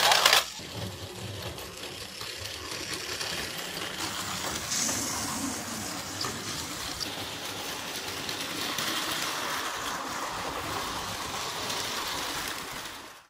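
Battery-powered Plarail toy trains running on plastic track: a steady whir of small motors and gears with the wheels running over the track joints. It opens with a brief loud burst and cuts off suddenly near the end.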